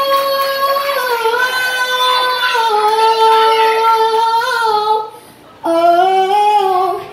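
A young girl singing long held notes into a microphone, her pitch stepping between notes. She breaks off briefly about five seconds in, then holds another note.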